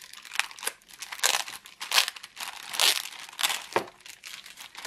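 Clear plastic bag crinkling in irregular bursts as it is handled and pulled at, louder about two and three seconds in.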